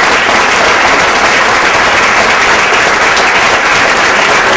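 Audience applauding: dense, steady clapping from a full house, joined by the cast on stage.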